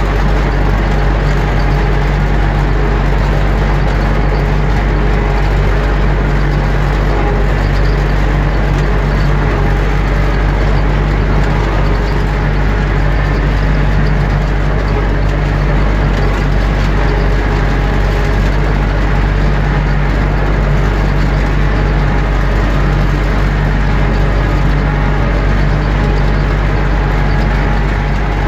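Universal U650 tractor's four-cylinder diesel engine running steadily as the tractor drives along, heard loud from inside the cab.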